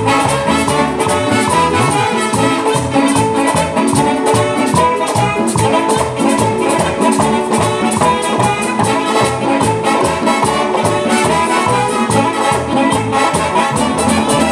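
Live Latin dance band playing a salsa number: a trumpet section over congas, timbales and other Latin percussion with piano and bass, at a steady dance beat.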